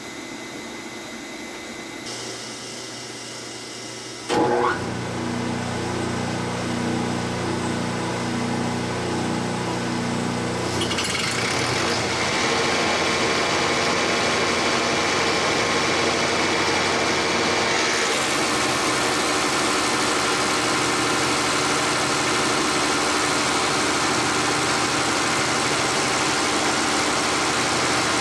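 Bacharach diesel injection pump test stand starting up about four seconds in and driving a Bosch VE rotary injection pump from a 12-valve Cummins at steady speed for a fuel-delivery test; before that only a steady hum from the stand. The sound changes and grows louder around eleven seconds in and again near eighteen seconds.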